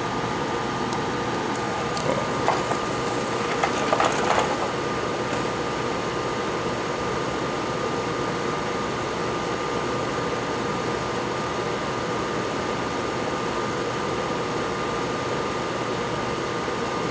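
Steady background hiss with a faint high whine. A few light clicks and taps come between about two and five seconds in, as a needle and small parts are handled and set down on a workbench.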